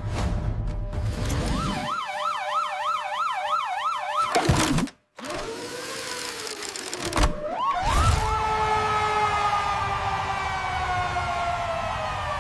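Siren sound effects: a fast warbling siren wail for about two seconds, then a whoosh and a brief break. After that a siren tone rises and then winds slowly downward in pitch.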